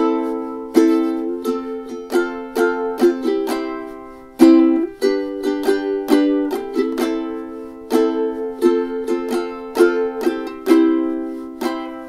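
Ukulele strummed in an eight-stroke pattern split across two chords: two downstrokes on one chord, then up, up, down, down, down on the next, moving through the Am, F, C and G chords.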